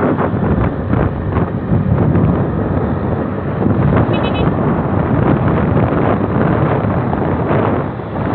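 Heavy wind buffeting on a phone microphone carried along a road at speed, a continuous gusty rumble with vehicle noise underneath.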